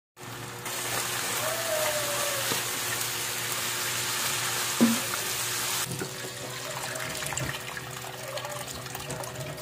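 Ground pork and onions sizzling in a frying pan while a spatula stirs them, with a sharp knock of the spatula about five seconds in. About six seconds in the sizzle gives way to water being poured into the pan, splashing into the meat.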